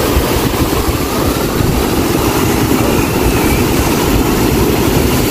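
Steady, loud wind buffeting the microphone, mixed with the rush of rough sea surf.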